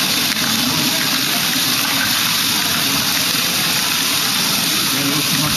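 LEGO Technic Great Ball Contraption modules running, motors and plastic gearing making a steady mechanical whir as a step-lift elevator raises the balls.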